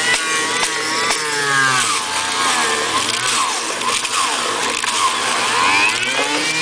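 Electric vegetable juicer running loaded, its motor whine sagging in pitch about a second in and wavering up and down as vegetables are ground, then climbing back up near the end.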